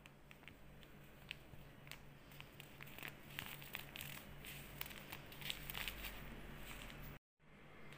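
Small foil-lined paper sachet crinkling and crackling as it is handled and squeezed to empty its powder into a mixing bowl: a run of quiet, irregular crackles that grows busier after about two seconds.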